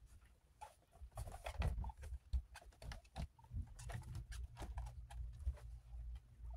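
Irregular light taps, clicks and rustles from fleece bedding being handled around a wire-panel guinea pig cage, with guinea pigs pattering about on the fleece, over a low steady hum.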